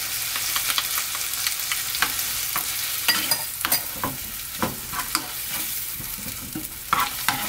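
Leftover stock anchovies sizzling in a frying pan with soy sauce and syrup, stirred with a wooden spoon that knocks and scrapes against the pan now and then.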